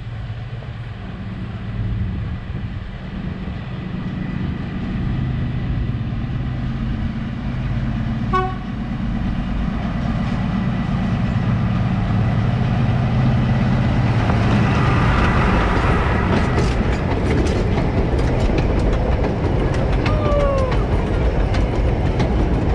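Lxd2 narrow-gauge diesel-hydraulic locomotive approaching and passing with its coaches, its engine growing louder as it nears. A short horn toot comes about a third of the way in, then wheel clicks over the rail joints and a brief falling squeal as the coaches go by.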